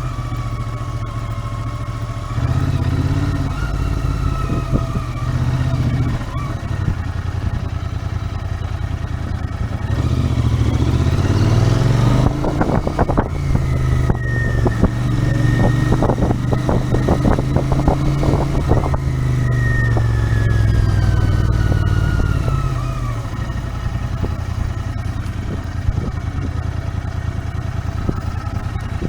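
Royal Enfield Interceptor 650's 648 cc parallel-twin engine running under way, heard from the rider's seat. It speeds up with a rising pitch about ten seconds in, holds, then eases off and falls in pitch a little after twenty seconds.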